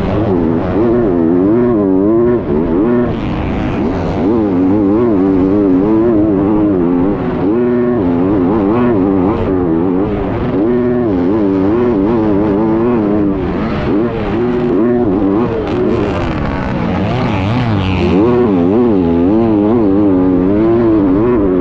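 Onboard sound of a 250cc motocross bike's engine at full race throttle in deep sand, its pitch rising and falling constantly as the rider accelerates, shifts and rolls off through ruts and over jumps.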